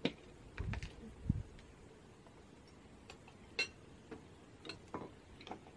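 Light clicks and taps of tableware, spaced irregularly, with a couple of dull low thumps about a second in.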